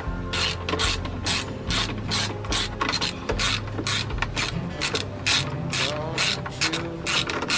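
Socket ratchet wrench clicking in quick back-and-forth strokes, about two to three a second, as a bolt is tightened on a pressure washer's handle bracket.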